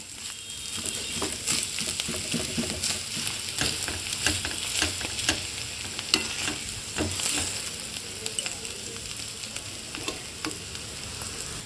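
Mashed spiny gourd sizzling as it fries in oil in a metal wok, while a ladle repeatedly scrapes and presses it against the pan to mash it down. The frying hiss is steady, with frequent short scrapes and clicks of the ladle throughout.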